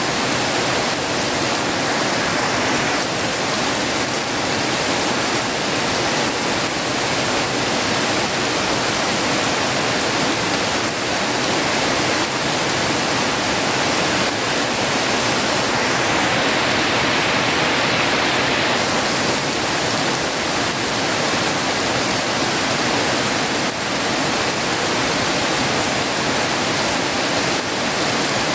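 Heavy rain falling steadily, a dense even hiss without breaks.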